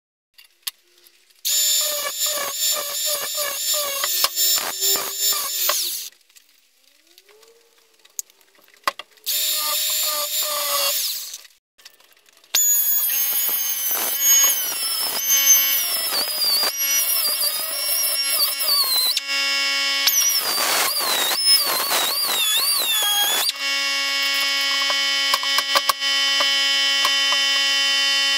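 Handheld air tool whining at high speed on the steel subframe. It runs twice for a few seconds, then almost without a break, its pitch dipping and rising as it bites.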